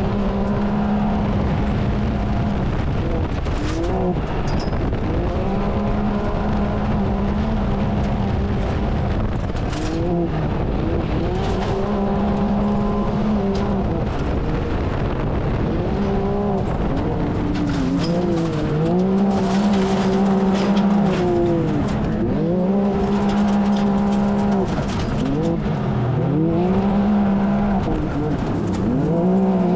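Can-Am Maverick X3's turbocharged three-cylinder engine at racing speed, heard from inside the open cab. It holds a steady high pitch for stretches, then dips and climbs back several times as the throttle is lifted and reapplied through the corners, over a rushing hiss of wind and tyres on dirt.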